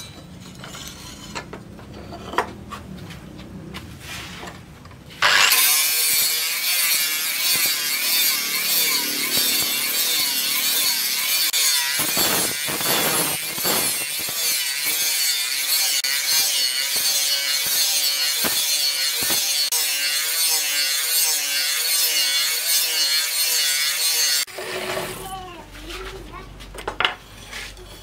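Electric angle grinder with a sanding disc grinding the flat of a steel cleaver blade. It starts about five seconds in, runs steadily with its whine wavering up and down, and stops near the end.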